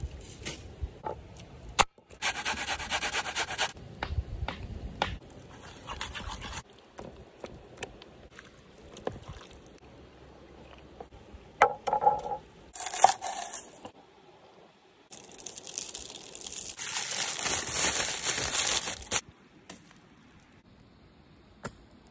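Utensils scraping and rubbing against a wooden bowl and a wooden cutting board during food preparation, in several separate bursts. The longest run from about two to four seconds in and from about fifteen to nineteen seconds in, with a few short knocks in between.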